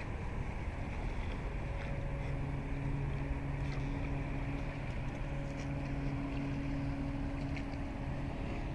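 Container ship's engine droning steadily, a low hum of constant pitch that comes in about a second and a half in, over wind rumbling on the microphone.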